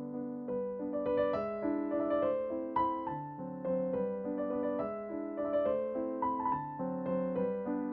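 Background piano music: a gentle melody of separately struck notes over lower notes.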